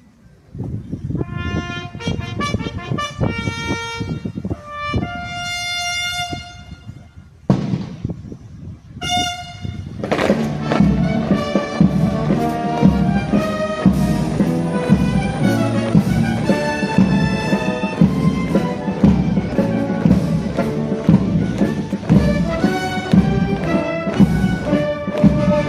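A bugle call of short brass notes over drums, then a military brass band starts a march about ten seconds in and plays on with a steady beat.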